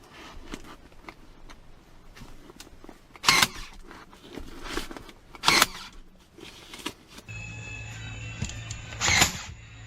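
Powertough 20V cordless brad nailer firing brads into wood: two sharp shots about two seconds apart, then a third bang near the end over a steady low hum.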